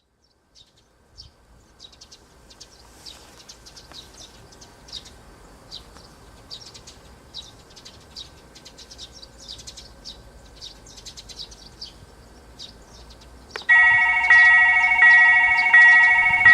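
Small birds chirping. In the last few seconds a railroad crossing's electronic warning bell starts suddenly and rings loudly, a ringing chime struck about three times every two seconds: the crossing signal activating for an approaching train.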